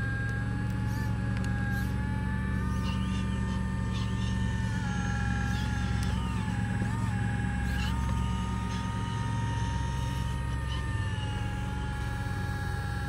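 Electric motors and gearing of radio-controlled Cat construction models working: a high whine that steps up and down in pitch and dips briefly several times as the load changes, over a steady low hum.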